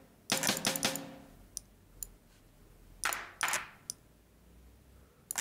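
Single drum samples from a Reason Drum Kits brushed kit triggered one at a time from a keyboard: a quick run of several short drum hits with brief pitched ringing in the first second, two more hits a little past the middle, and a few faint clicks between them.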